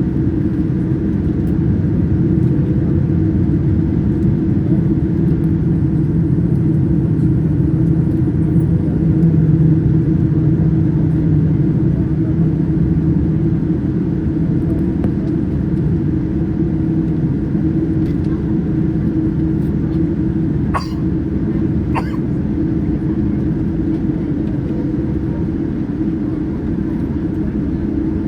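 Steady low rumble of engine and airflow noise inside a Boeing 787-9 airliner's cabin. Two sharp clicks come about a second apart, roughly three-quarters of the way through.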